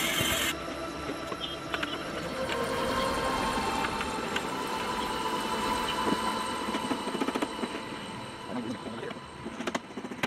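Small table saw motor running steadily, fading after about eight seconds, then a series of sharp hammer taps as nails are driven into a plywood panel near the end.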